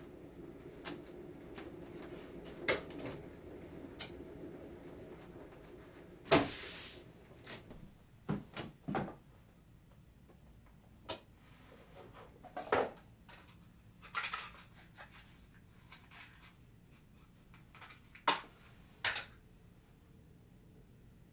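Scattered knocks, clicks and short clatters of small studio objects being picked up and set down on wooden surfaces. The loudest clatter comes about six seconds in, and a few sharper knocks follow at intervals.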